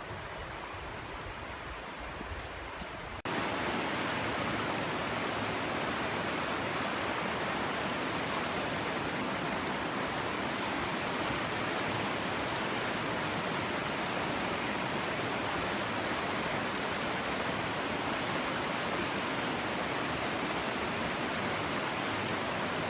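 Steady rush of a trout stream's flowing water, which jumps louder about three seconds in.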